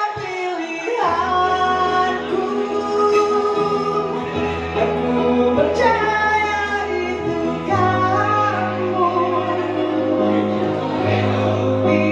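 A woman singing long held notes into a microphone with a live band of guitars and keyboards, a low accompaniment coming in about a second in.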